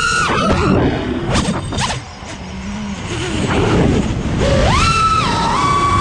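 Freestyle FPV quadcopter's four Brother Hobby R6 2207 1800kv brushless motors and props on 6S, whining with pitch rising and falling with the throttle. The sound dips sharply about two seconds in as the throttle is chopped, then climbs back to a high steady whine with another throttle punch near the end, over wind rush on the onboard camera's microphone.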